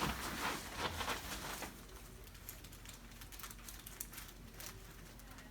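Faint rustling with scattered light clicks, a little louder in the first second or two: movement of a patient and of the chiropractor around a chiropractic treatment table.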